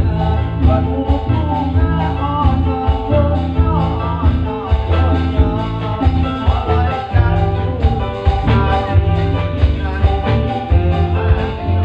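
Loud music with a heavy bass and a singing voice, played for a Badui folk dance performance.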